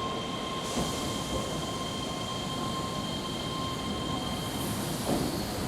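Keihan commuter train moving along the platform, with steady rail and running noise and a thin, steady high tone over it. The noise gets brighter a little under a second in.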